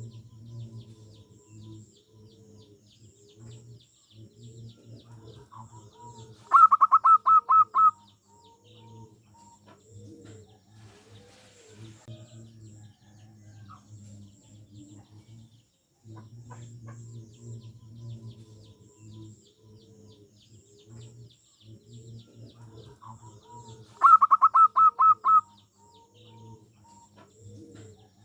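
Zebra dove (perkutut) cooing, a steady run of soft, low rounded notes. Twice, about seventeen seconds apart, a much louder quick run of about eight sharp, higher notes cuts in for a second or so.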